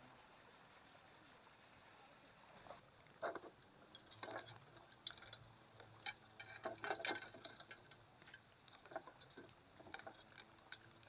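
Faint handling noise from a clear plastic compartment box: scattered, irregular clicks and taps, starting about three seconds in and thickest in the middle.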